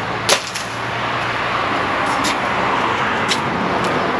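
Sharp click about a third of a second in, with a few fainter ticks later, from hands working at a uPVC porch window frame. Under it runs a steady rush like road traffic, swelling slightly through the middle.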